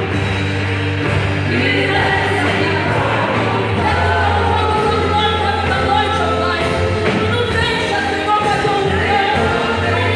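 Worship music with singing: voices over a band with a steady, heavy bass line.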